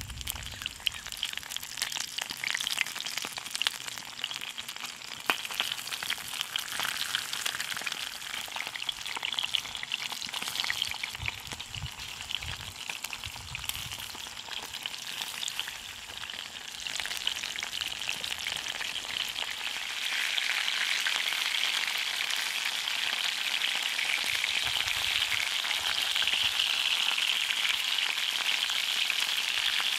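Starch-coated sandfish shallow-frying in hot oil in a cast-iron skillet: a steady sizzle with fine crackling pops, which grows louder about two-thirds of the way through.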